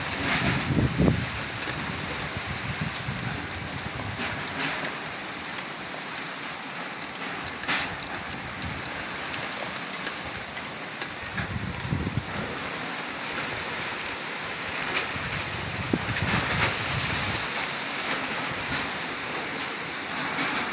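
Heavy typhoon rain pouring steadily, with a few gusts of wind buffeting the microphone.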